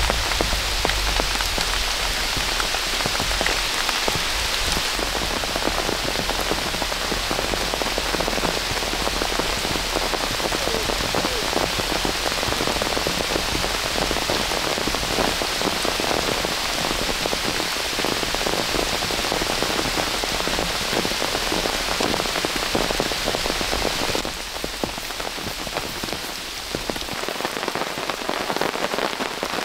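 Heavy rain falling steadily, many separate drops striking close by. About 24 seconds in the sound turns a little quieter and thinner.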